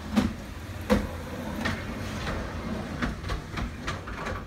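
Frameless glass balcony-enclosure panels being pushed along their track, with irregular clacks and knocks over a low steady rumble.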